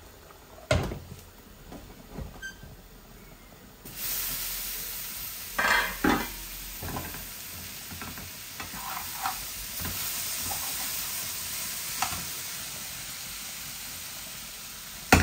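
Papaya and carrot bhaji frying dry in a pan, with no water added, sizzling steadily from about four seconds in. A spatula clatters and scrapes against the pan as it is stirred, and there are a few knocks of pans and lids before the sizzle starts.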